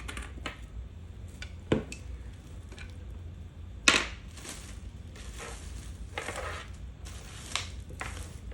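A hair dryer's plastic parts being handled. There are a few sharp clicks and knocks, the loudest about four seconds in, then a run of short scraping, rustling strokes.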